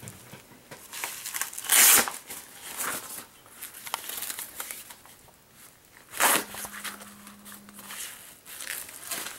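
Velcro strap of a cloth upper-arm blood pressure cuff being ripped open and pressed shut as the cuff is wrapped on, with two loud rips about two seconds and six seconds in and smaller crackles between. A low steady tone runs for about a second and a half after the second rip.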